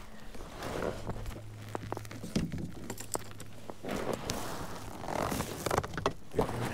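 Fishing tackle being handled in a kayak: a run of small clicks, knocks and rustles as gear is moved about.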